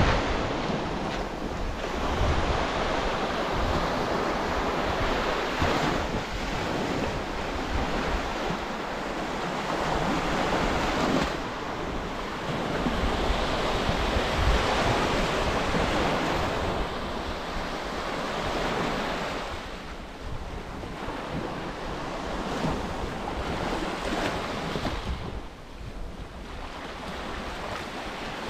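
Sea waves washing onto a beach, swelling and easing every few seconds, with wind rumbling on the microphone.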